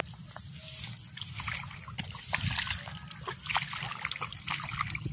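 Feet wading through the shallow water and soft mud of a flooded rice paddy, with irregular splashing and sloshing at each step.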